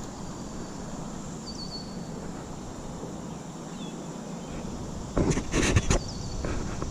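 Outdoor pond ambience: a steady low rumble and a faint high insect drone, with a few short chirping bird calls. About five seconds in, a brief cluster of loud knocks and rustles stands out.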